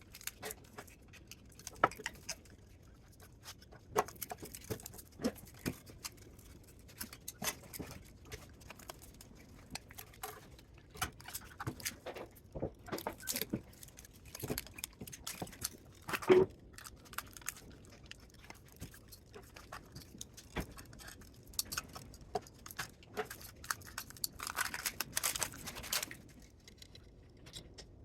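Irregular clinks, clicks and light knocks of hand work on the scrap spot welder's metal parts, with one louder knock about sixteen seconds in and a short scraping stretch near the end.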